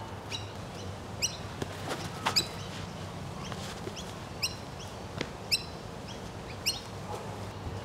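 A bird calling repeatedly in short, sharp notes, about one a second, over a steady low hum. A few faint knocks come in between the calls.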